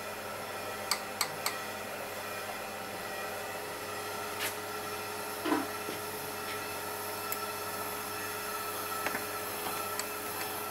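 Hand tools working the top triple clamp bolts of a motorcycle: three quick sharp clicks about a second in, another click a few seconds later and a duller knock, over a steady background hum.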